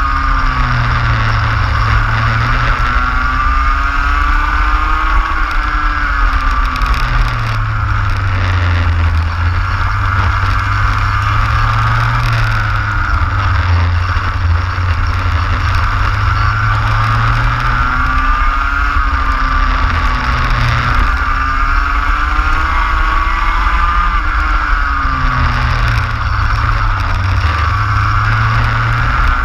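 Racing kart engine heard from on board, its pitch rising repeatedly as it accelerates along the straights and dropping back for the corners, over a steady low rumble.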